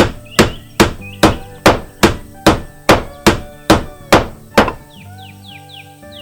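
A rapid run of about twelve evenly spaced hammer-like strikes, a little over two a second, stopping about four and a half seconds in, over cartoon background music.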